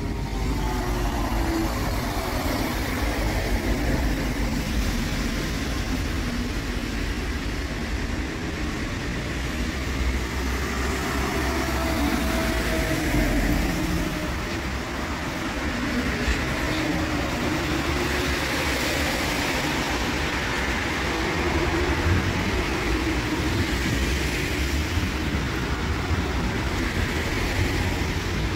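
Cologne Stadtbahn light-rail trains running through a surface stop: a steady rumble of steel wheels on rails and electric drive noise, with a falling motor whine at the start as a train slows.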